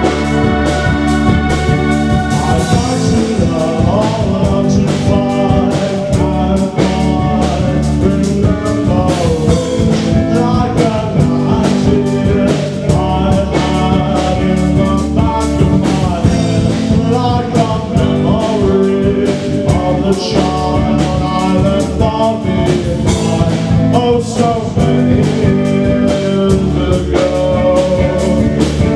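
A live band playing: a man singing over electric bass and drums.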